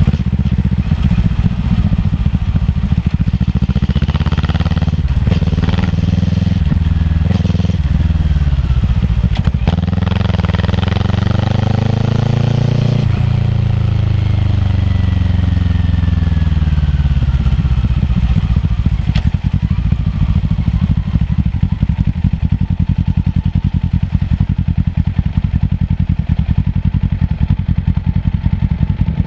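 Kawasaki ER-6f's parallel-twin engine through a Yoshimura full-system exhaust, running under way. About ten seconds in the revs climb for roughly three seconds, then cut off abruptly and fall away, settling into a steady low drone.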